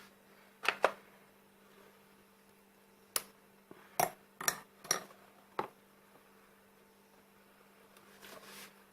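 Small hard objects clicking and clinking as hand tools and headset parts are handled on a workbench, about seven sharp separate clicks with a brief soft rustle near the end, over a faint steady hum.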